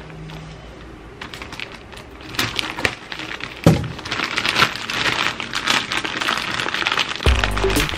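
Yellow plastic courier bag crinkling and crackling as it is handled, with a sharp snap about halfway through. Background music comes in near the end.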